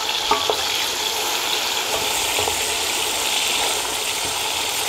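Sliced onions sizzling steadily in hot groundnut oil in a pot, just after being tipped in to fry.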